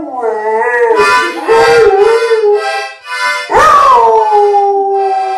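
A dog howling along to a child's toy accordion. The howl wavers up and down at first, short accordion notes come between, and about two-thirds through a long howl starts high, falls and then holds steady.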